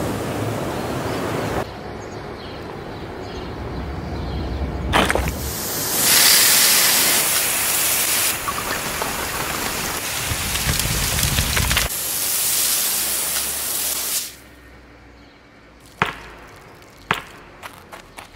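A steady rushing noise that changes abruptly in loudness and tone every few seconds. Near the end it drops to a low hiss, broken by a few sharp clicks.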